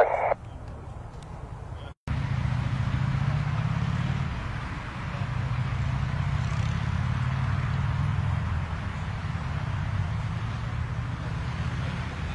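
Jet aircraft on approach to land, heard at a distance: steady engine noise with a low hum that starts suddenly about two seconds in.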